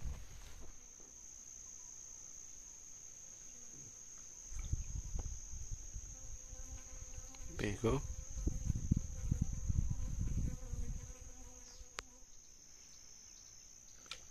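Insects chirring steadily on one high-pitched note throughout. A low rumbling noise comes and goes from about four and a half to eleven seconds in.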